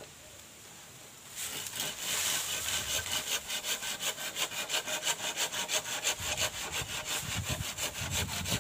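Hand saw cutting through a bamboo pole with rapid, even back-and-forth strokes, starting about a second and a half in.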